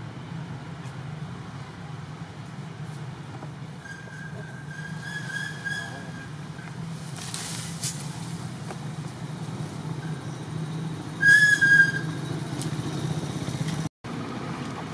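Baby macaque giving high, thin whistling cries twice: a longer wavering cry about four seconds in, then a short loud one about eleven seconds in. The cries are the distress calls of a young monkey. A steady low hum runs underneath.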